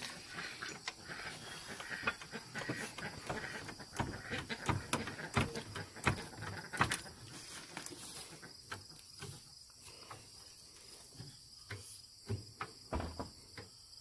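Irregular clicks and knocks of a hydraulic floor jack being worked under a car, denser in the first half, over a steady high trill of insects.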